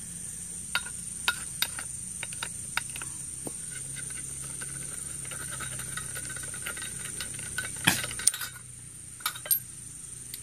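Metal clicks and knocks of tools and parts as a steel brush cutter blade is unbolted and taken off the cutter head, with the loudest clanks about eight seconds in and two more near the end. Insects drone steadily at a high pitch behind.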